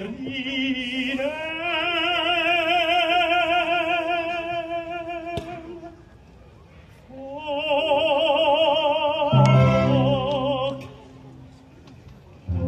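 Operatic singing with orchestra: a single trained voice holds long notes with wide vibrato in two phrases, separated by a short pause. Lower orchestral chords come in under the second phrase before it stops.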